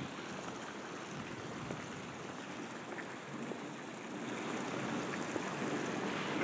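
Steady outdoor background noise: an even rushing hiss with no distinct events, growing slightly louder near the end.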